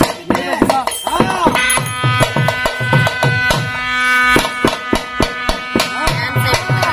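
Gangireddu melam music: a shehnai-type double-reed pipe plays a melody with bending notes, then holds one long note through the middle, over a large barrel drum beating about twice a second.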